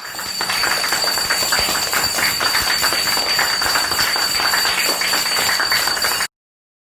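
Applause, many hands clapping in a dense crackle, which starts suddenly and is cut off abruptly about six seconds in.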